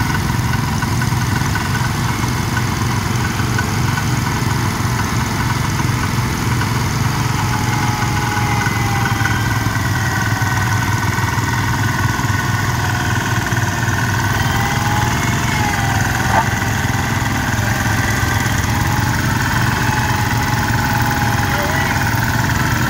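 Two Cub Cadet garden tractor engines running together at a steady, even pace under load, pulling on a double tree hitch.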